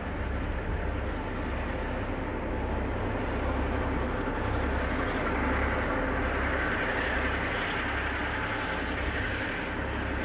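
Diesel-electric locomotive engine running under power as it hauls a coal train, with a steady low throb that pulses.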